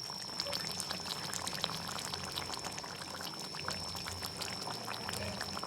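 Pointed gourd curry cooking in a pan, with a steady run of small crackles and pops.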